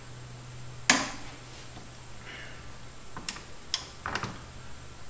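Hand tools clanking on metal as a crank pulley holding tool and a socket on a long bar are fitted to the harmonic balancer bolt of a Honda 3.5L V6. There is one sharp, ringing clank about a second in, then a few lighter clicks and knocks near the end.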